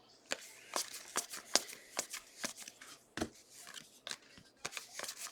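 Football trading cards being flipped through by hand, with an irregular run of sharp card-on-card snaps and slides, a few each second.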